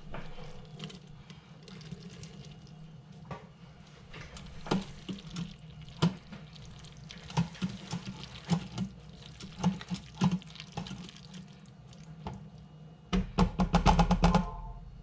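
Cooked macaroni stirred into cheese sauce in a slow cooker's metal pot with a silicone spatula: wet stirring with scattered knocks of the spatula against the pot. A quick flurry of rapid strokes near the end is the loudest part.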